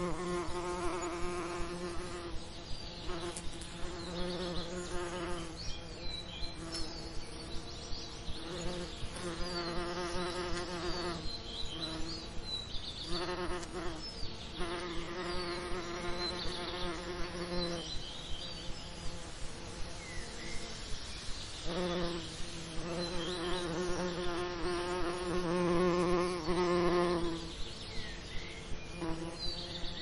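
Bees buzzing: a hum that swells and fades every few seconds as they fly near and away, with short gaps between passes. Faint high chirps sound in the background.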